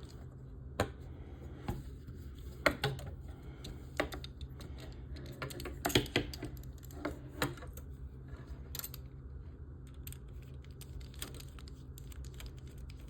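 Small screws and a screwdriver clicking and tapping against the model's frame parts as the screws are fitted and driven in: a scattered series of light clicks, most of them in the first nine seconds.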